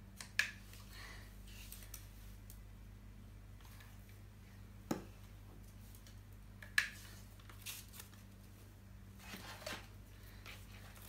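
Quiet room with a steady low hum, broken by a few short clicks and rustles of craft materials being handled: foam pieces, paper plates and a hot glue gun.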